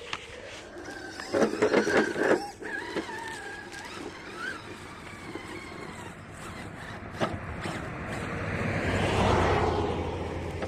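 Small electric RC rock crawler (Redcat Ascent) driving over rough ground: a faint wavering motor whine with a cluster of knocks about one and a half to two and a half seconds in. Near the end a swell of noise rises and falls away.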